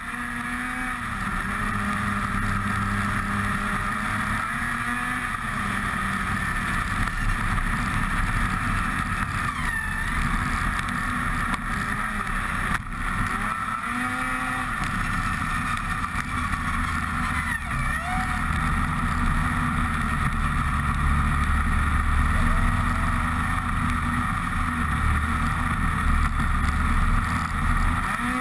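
Snowmobile engine running at speed, heard from the rider's helmet-mounted camera, its pitch dipping and rising a few times with the throttle, over a steady rush of wind and track noise.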